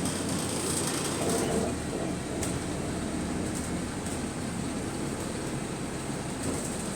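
Interior of a single-decker bus on the move: engine and road noise with rattling, and a brief whine about a second in.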